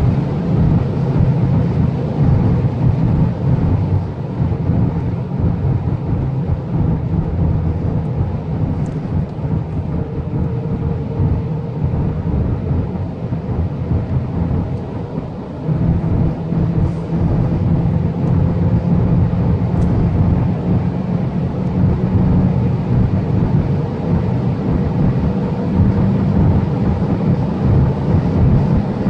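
Cabin sound of a VW Jetta's turbocharged 1.4 TSI four-cylinder engine at highway speed, with road and wind noise. For the first half the engine is easing off as the car slows from about 200 km/h. About halfway through it suddenly gets louder as the gearbox drops to fifth and the car accelerates hard back toward 200 km/h.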